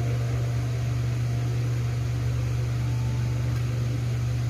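Steady low hum at an even level throughout.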